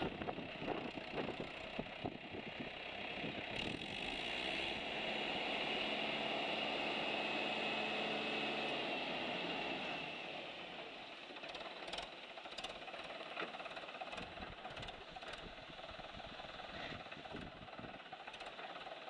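Mahindra 475 DI tractor's diesel engine running under load for several seconds while its hydraulics raise the tipping trolley bed, then dropping back to a lower, clattering run about ten seconds in, with a few knocks and rattles.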